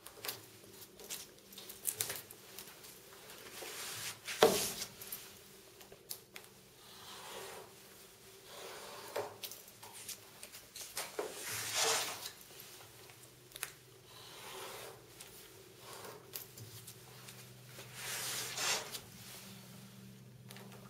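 Sharp knife trimming the overhanging laminate and polypropylene photo print along the edges of an acrylic sheet: a series of short scratchy cutting strokes, with small clicks and handling knocks between them and one sharp knock about four seconds in.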